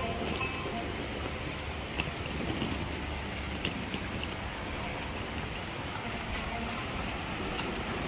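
Steady hiss of water splashing, from fountain jets falling into a pool.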